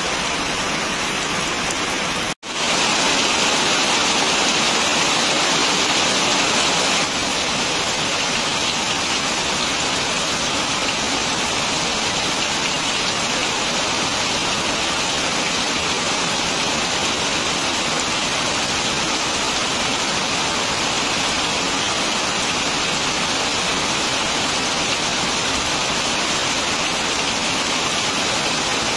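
Heavy rain falling steadily, an even hiss, with a momentary dropout about two seconds in.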